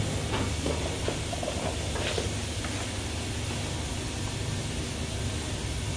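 Steady hiss with a low hum underneath, the running noise of kitchen equipment, with a few faint clicks.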